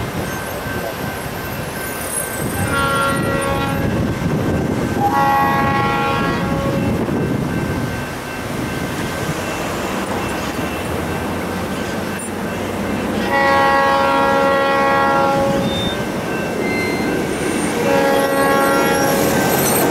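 Freight locomotive air horn sounding four long chord blasts, the first shorter than the rest and the last still sounding at the end, over the steady low rumble of the approaching train.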